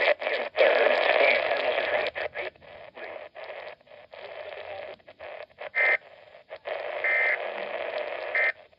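A portable weather radio's speaker giving out static as its tuning knob is turned between stations. The hiss keeps cutting in and out, with brief high whistles at about six, seven and eight and a half seconds in.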